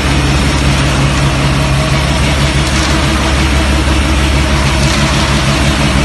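Concrete mixer with pump running, a steady low drone that holds constant throughout.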